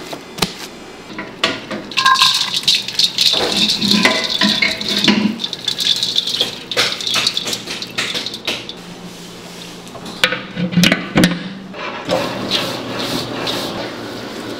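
Kitchen clatter from baking work: containers and utensils rattling and knocking, with a rattling, hissing stretch early on and a few sharp knocks about ten to eleven seconds in.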